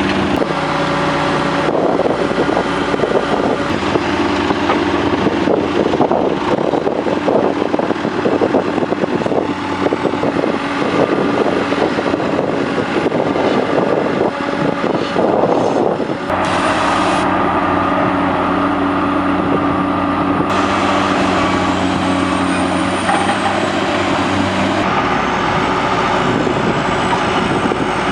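Diesel engines of heavy construction machinery running under load, with clanking in the first half. The sound changes abruptly several times, as one clip cuts to another.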